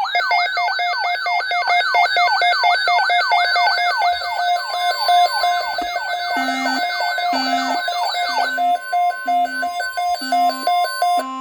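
Electronic siren-like alarm tones: a fast falling wail repeating about three times a second over a steady tone. A low beep pulsing about once a second joins partway through. The wail stops about two thirds of the way in, leaving the steady tones and the beeps.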